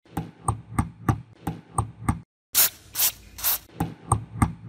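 Rusty internal mechanism of an antique mechanical scale being worked: a run of sharp clicks, about three a second, from the metal and plastic parts, broken midway by three longer scraping rubs.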